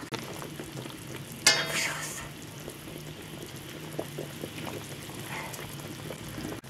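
Chicken pieces and onion rings boiling in a large steaming pot over a fire, a steady bubbling and hissing with a low hum underneath. About a second and a half in, a short loud ringing sound cuts in and fades within half a second.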